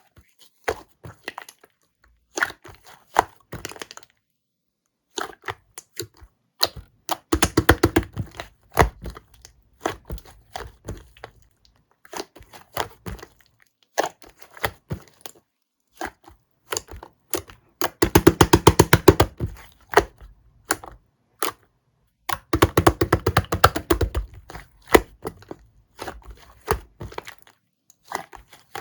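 Slime being pressed and squeezed by hand, giving sharp clicks and crackling air-bubble pops. The pops come in scattered ones and twos, with three bursts of rapid clicking.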